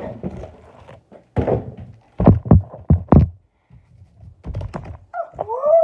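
Thumps and knocks of a plastic penny board and its cardboard box being handled on a table, with a quick run of four heavy knocks in the middle and a few more later.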